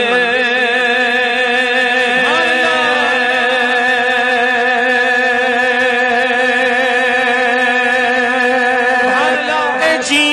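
A male singer holding one long note with a wavering vibrato in a devotional Punjabi Sufi song, with short sliding notes about two seconds in and again near the end.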